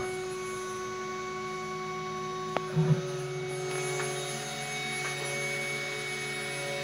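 Home-made CNC router milling a circuit board: a steady hum of several tones from its VFD-driven spindle and stepper motors. A sharp click comes about two and a half seconds in, then a brief bump, and after that the pitch of the tones shifts as the machine changes move.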